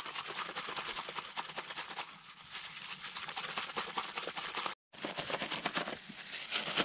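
Plastic bag holding water, crushed birch leaves and wood ash being squeezed and kneaded by hand, making dense rapid crinkling and crackling. It breaks off for an instant about two-thirds of the way through.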